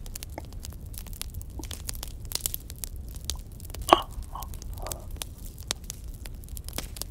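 Crackling campfire: a steady scatter of sharp pops and snaps over a low rumble, with one louder snap about four seconds in.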